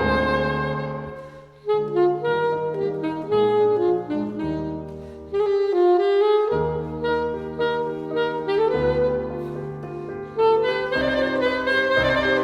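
Classical saxophone playing a slow, held melody over piano accompaniment, with short pauses between phrases.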